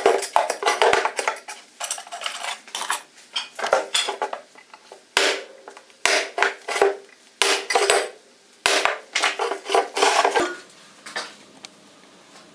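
A steel hand tool scraping and tapping on a 10 mm steel plate in quick, irregular strokes, each with a short metallic ring.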